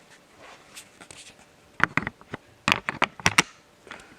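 Handling noise: a quick run of knocks and clattering clicks lasting about a second and a half, starting about two seconds in. No steady motor tone; the fan is not yet running.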